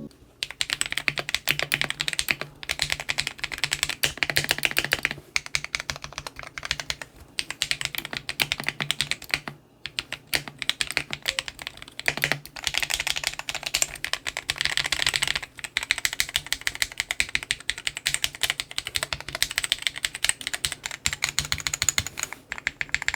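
Rapid typing on a mechanical keyboard fitted with lubed Akko Radiant Red and unlubed Akko Vintage White switches, a dense run of key clacks with a couple of brief pauses.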